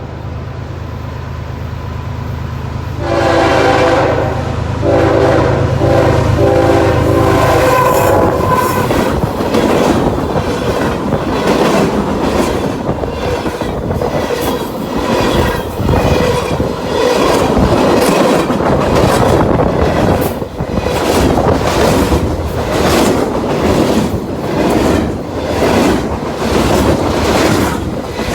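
CSX freight train passing close by: the diesel locomotives' engines run loud and the horn sounds for several seconds, then the freight cars roll past with a steady clickety-clack of wheels over the rail joints.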